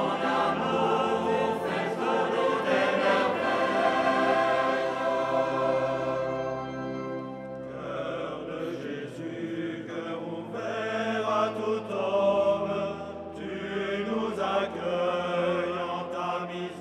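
Choir singing a slow liturgical chant over long held low notes, with a change in the sound about eight seconds in.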